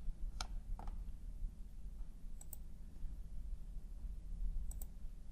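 Computer mouse clicking about six times: two single clicks in the first second, then a quick double click near the middle and another near the end, over a faint steady room hum.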